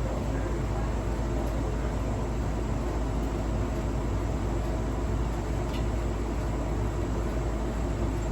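A household appliance running with a steady rumble and hum, with a faint click about six seconds in; the owner questions whether its squeaking, scraping and clicking mean it is faulty.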